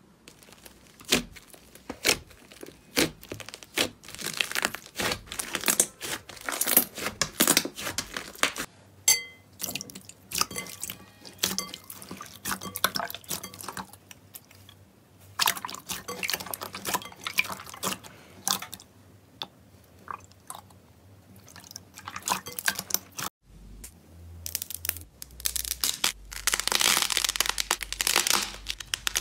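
Hands squeezing, poking and stretching slime: sticky pops, clicks and crackles in quick runs. Several kinds of slime follow one another, from a thick butter slime to a clear glossy slime and a soft clay-topped slime.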